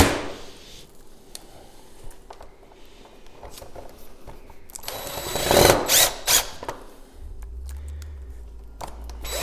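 Power drill driving screws into a patio door's aluminium interlock: a short whirring burst about halfway through, with light clicks and handling before it.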